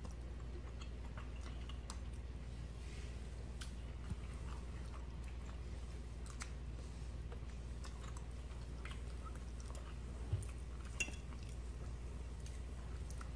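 Two people eating baked fish, potato and broccoli: quiet chewing, with metal forks scraping and tapping on plates, over a steady low hum. A few sharper taps of a fork on a plate, about four seconds in and twice near the end.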